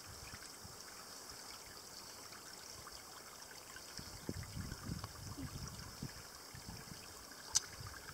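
Faint, steady trickle of a shallow seep of mine water running thinly over mineral-crusted rocks and moss. Low rumbling bumps come in about halfway through, with a sharp click near the end.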